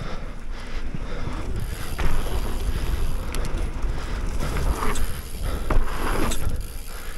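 Wind buffeting the microphone over the rumble of mountain bike tyres rolling on dirt, with a few knocks from the bike as it rides over the jumps.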